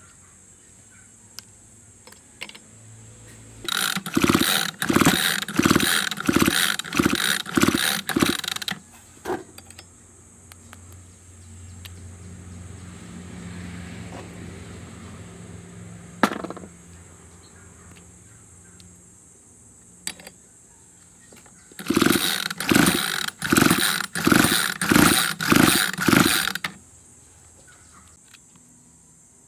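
Recoil starter of a Shindaiwa 685 chainsaw pulled repeatedly in two runs of about seven quick pulls each, turning the engine over without it firing. The spark plug is out of the cylinder and held to the engine in its boot, a spark check. A single sharp knock comes between the two runs.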